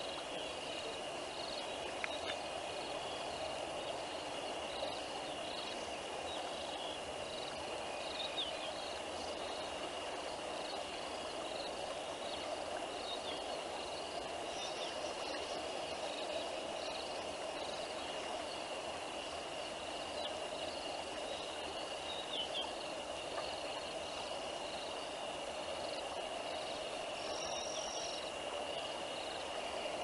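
Insects calling, crickets among them: one unbroken high trill, with short chirps repeating about once a second, over a steady background hiss. A few brief whistled calls stand out now and then, the longest near the end.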